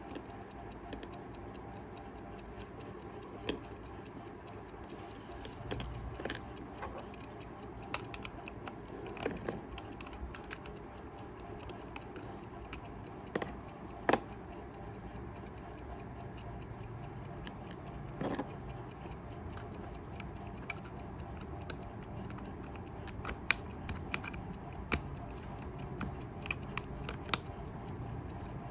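Kaiser 4 Rubis mechanical travel alarm clock ticking steadily, its revived movement running. Occasional louder, irregular clicks and knocks sound over the ticking.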